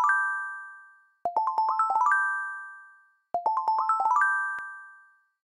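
Intro jingle: a quick rising run of bright chiming notes that ends on a ringing chord and fades out. It plays twice, about two seconds apart, after the fading tail of the one before.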